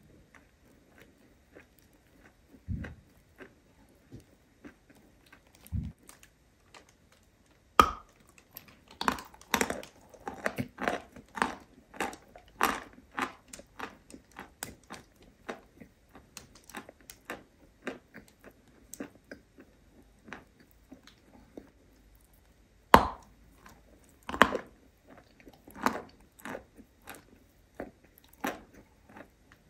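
Close-miked chewing of soft berry mochi with a cream filling: irregular sharp mouth clicks and smacks right at the microphone. It is sparse and quiet for the first several seconds, then busy, with a brief lull before a loud sharp click about two-thirds of the way through.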